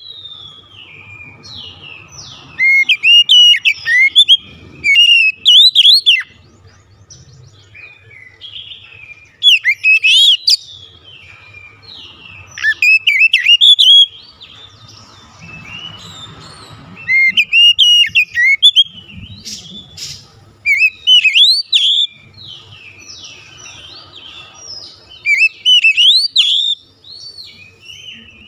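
Oriental magpie-robin singing a loud, varied song of sweeping whistles and chirps, delivered in repeated bursts of a second or two with short pauses between.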